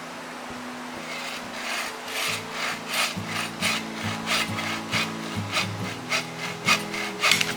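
Hand saw cutting through wood in quick back-and-forth strokes, about three a second, starting about a second in.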